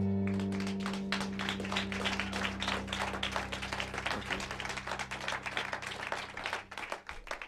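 The last chord of acoustic guitars and bass rings out and dies away, then a small audience applauds, the clapping growing fainter toward the end.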